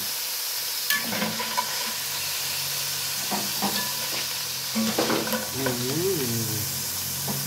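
Chicken pieces sizzling steadily in hot fat in an enamelled pot, with a few clinks and scrapes of a wire spider skimmer and a fork against the pot as the pieces are lifted out.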